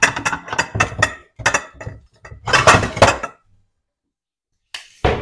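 Cutlery knocking and clinking against dishes while potatoes are served onto a plate: a quick, uneven run of clatters for the first three seconds or so, then a pause and one more clink near the end.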